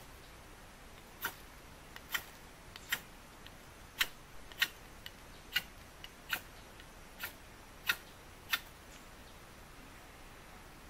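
About ten sharp, irregular clicks or snaps, roughly one a second, as a campfire is being lit with toilet paper tinder.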